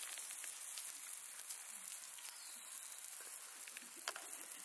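Yakitori skewers sizzling on the grill: a steady faint hiss with scattered small crackles, and one sharper click about four seconds in.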